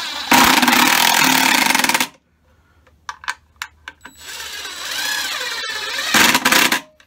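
Cordless drill/driver driving wood screws into the corner of an old wooden hive box, twice. Each time the motor whines as the screw turns in, then gives way to a louder, harsher rattle as the screw draws tight, with a few light clicks in the pause between the two screws.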